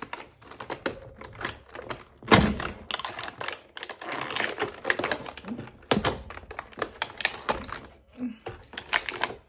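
Cardboard door of an advent calendar being pushed open along its perforations and the packaged toy inside handled: rapid irregular clicks, crackles and rustling, with a louder knock about two seconds in and another about six seconds in.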